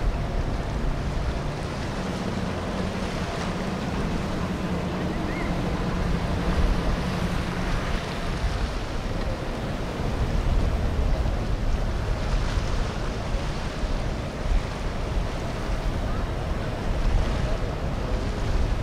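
Boat engines running over a steady wash of water, with wind buffeting the microphone.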